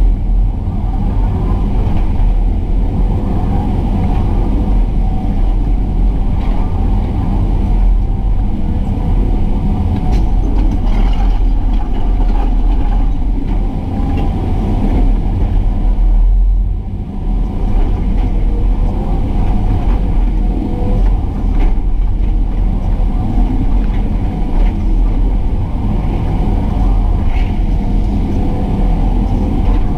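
Excavator's diesel engine running steadily while it works, a dense low rumble with a short dip in level about seventeen seconds in.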